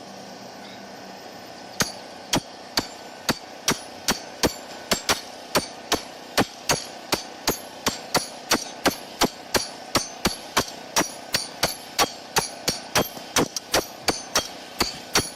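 Steady hammering: sharp, evenly spaced blows, about two a second, starting about two seconds in, over a steady background noise.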